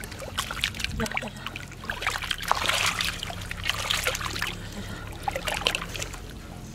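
Water splashing and trickling in many small, quick splashes, busiest in the middle, over a faint steady low hum.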